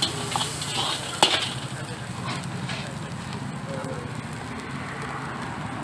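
Shredded vegetables sizzling in a large street-vendor's wok, with a metal ladle knocking and scraping against the wok several times in the first second or so, the loudest knock about a second in; then steady sizzling.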